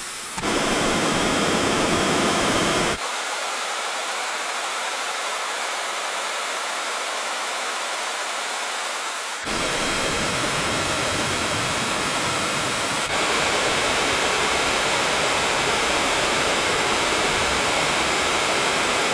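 Waterfall rushing in a steady roar of falling water. The sound shifts abruptly several times, and its deep rumble drops away for several seconds from about 3 s in before returning.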